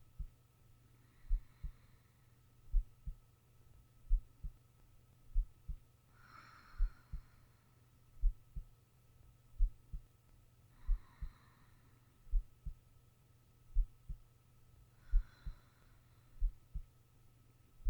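A sleeping person's heartbeat, a low double thump (lub-dub) about every second and a half, slow and even. Soft slow breaths come every four to five seconds.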